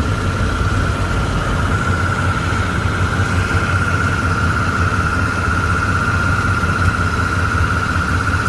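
Ford F-150 pickup engine idling, heard from under the front of the truck, with a steady high-pitched whine over the low engine rumble; the whine steps up slightly about two seconds in.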